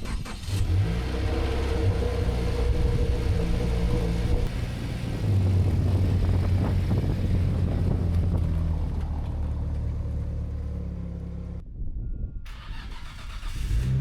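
Toyota GR86's 2.4-litre flat-four engine starting and then running steadily through its exhaust, the low note growing stronger about five seconds in. The sound cuts off abruptly about twelve seconds in.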